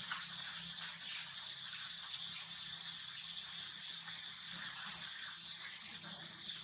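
Steady outdoor background noise: a constant hiss with a steady high-pitched tone running through it, and a few faint short crackles or rustles in the first couple of seconds.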